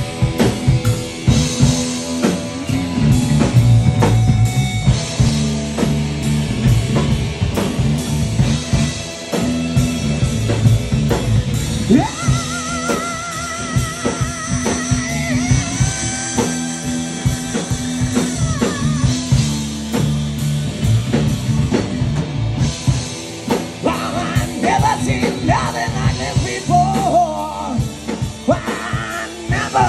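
Live rock band playing through a bar PA: distorted electric guitar, electric bass and a PDP drum kit with cymbals, loud and steady throughout. From about 12 to 19 seconds in, a man sings a long held note with vibrato over the band.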